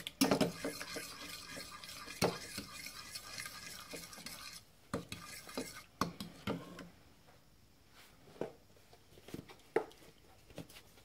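A metal fork stirring a thick baking soda cleaning paste in a ceramic bowl, scraping and clinking against the bowl. The clinks come thick and fast at first, then thin out to a few scattered taps in the second half.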